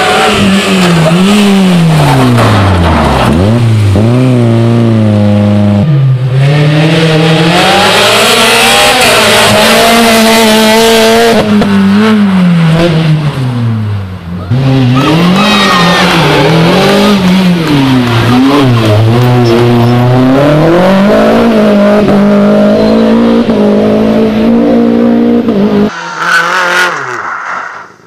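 Rally car engines at full throttle on a special stage, several cars one after another: the pitch climbs and falls repeatedly as each car revs up, changes gear and lifts off for corners, with abrupt changes from one car to the next.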